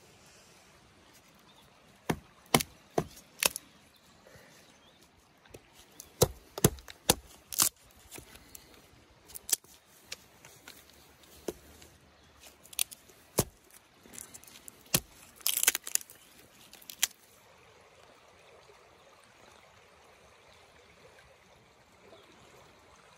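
A fixed-blade knife chopping into a dry stick against a log: more than a dozen sharp wooden knocks in irregular bunches, then only a faint steady hiss for the last few seconds.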